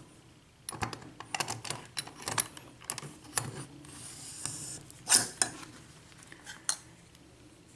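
Scattered metallic clicks and clinks of a mortise lock cylinder being set in a vise and small picking tools being handled, with one louder clack about five seconds in.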